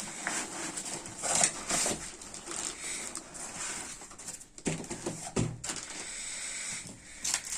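Packaging rustling and being handled while an oscilloscope is unboxed, with scattered light clicks and two dull knocks about four and a half and five and a half seconds in.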